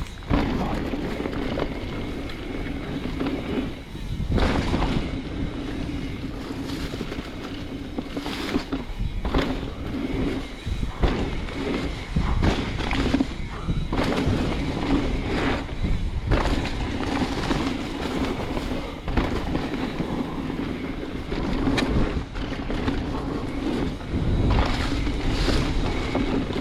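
Mountain bike rolling down a dirt trail: knobby tires humming and crunching over the ground, with wind on the microphone and frequent knocks and rattles as the bike hits bumps.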